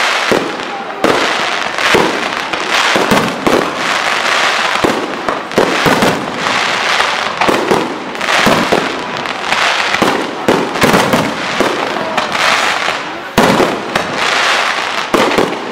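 Fireworks display: a rapid string of sharp bangs from launching comets and bursting shells, several a second, over a continuous crackling hiss.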